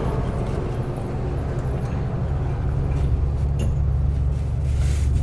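Diesel truck engine idling steadily, a low even hum, with a few faint clicks from small metal parts being handled.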